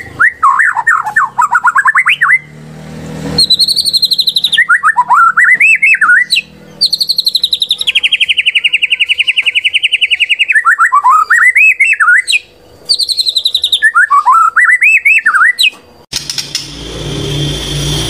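White-rumped shama (murai batu) song, loud and fast: repeated sweeping notes and a long rattling trill, a lure recording meant to provoke a caged shama into singing. Near the end the song stops and a rough noise takes over.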